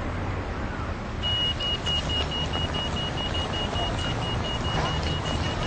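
Pedestrian crossing signal beeping rapidly at one steady high pitch, starting about a second in, over a low hum of street traffic.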